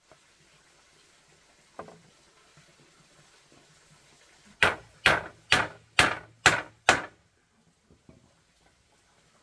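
Six sharp blows of a hand tool, about two a second, the work of chopping or hammering on wood. One lighter knock comes earlier.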